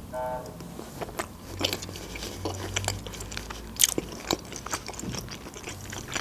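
Close-miked chewing of a slice of raw salmon: scattered wet clicks and smacks of the mouth, after a brief hum at the start.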